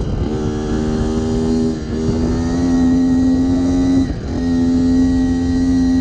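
Small motorbike engine running at steady revs, dipping briefly about two and four seconds in and coming back up slightly higher each time.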